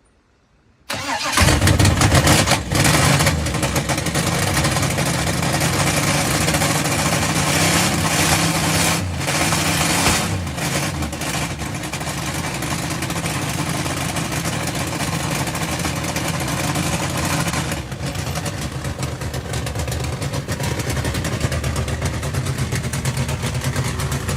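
Car engine, primed with a shot of ether (starting fluid), firing up suddenly about a second in and running on steadily. It is loudest in the first couple of seconds after it catches, then settles.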